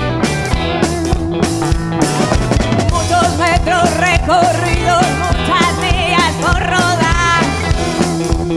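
Live rock-and-roll boogie band playing: drums, bass guitar and hollow-body electric guitars keep a driving rhythm, and from about three seconds in a woman sings a wavering line with a fast vibrato over it.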